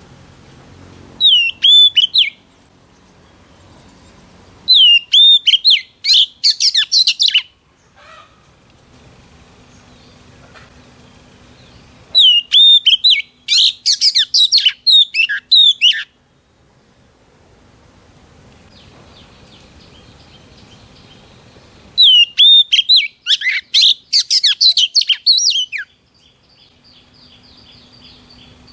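Oriental magpie-robin singing in loud bouts of a few seconds, four times, with pauses between. Each bout opens with a clear whistled note and runs into a quick string of varied whistles and chatter.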